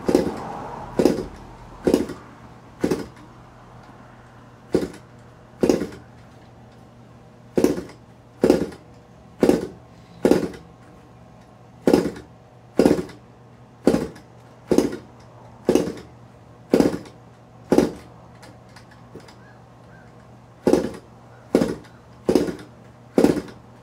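The RCGF 20cc twin-cylinder boxer gas engine is being started by flicking its propeller by hand, over and over. About once a second there is a short sharp sound as the engine turns over, in runs of several with brief pauses, and the engine does not catch.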